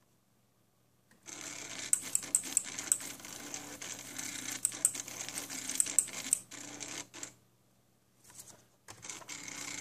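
Small stepper motors of a homemade mini SCARA pen plotter buzzing and clicking as they drive the arm through a drawing of circles. It starts about a second in, stops briefly near the end, then starts again.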